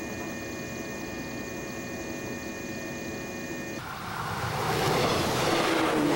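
A 415 series electric train standing at the platform gives off a steady electrical hum with several held tones. About four seconds in this cuts off suddenly to louder rushing train noise that builds, with a tone that slowly falls in pitch.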